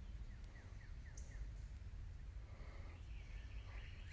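Small birds calling: a quick run of about five short falling chirps in the first second and a half, then a repeated chirp near the end, over a steady low rumble.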